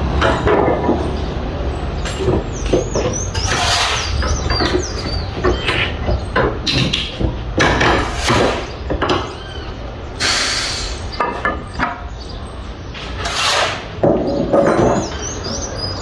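Construction-site noise: a steady low machine hum under irregular knocks, scrapes and high squeals of tools and building materials being worked.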